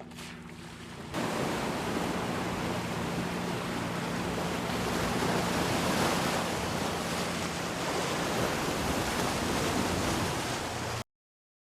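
Electric G-Class on an off-road drive: a loud, steady rushing noise that starts suddenly about a second in, with a faint low hum underneath. It cuts off abruptly near the end.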